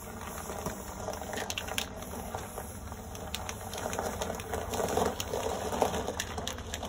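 Aerosol spray-paint can spraying onto a riding mower's steel hood, an uneven hiss that swells about four to five seconds in.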